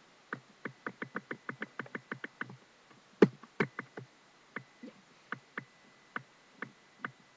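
A run of quick small clicks, about five a second, then a louder knock a little past three seconds in, followed by scattered single clicks.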